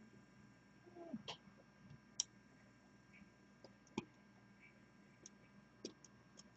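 Near silence with about half a dozen faint, sharp clicks and ticks scattered through, from a small screwdriver turning the trimmer potentiometer on a dust sensor module.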